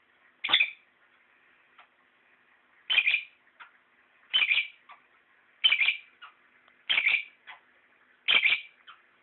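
A lovebird calling: six short, sharp calls about every second and a half, each followed by a fainter little chirp.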